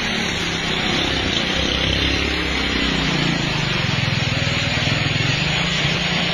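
Engine of a heavily loaded truck labouring up a steep hill, with a rapid low firing beat that grows stronger about three seconds in.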